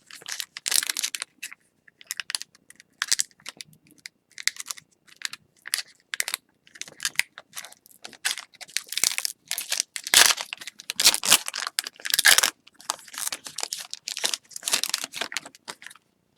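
Crinkling and tearing of a hockey card pack wrapper as a new pack is opened, in many short irregular rustles.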